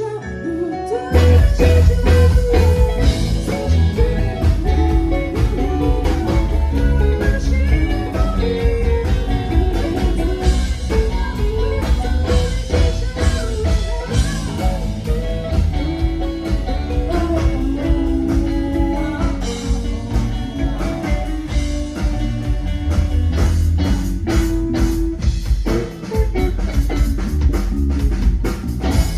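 A live band playing a funk-rock song on drum kit, bass and electric guitar, with a steady beat.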